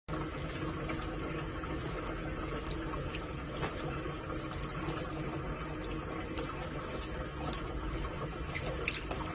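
Steady rush of running water, with a faint hum beneath it and a few light clicks scattered through.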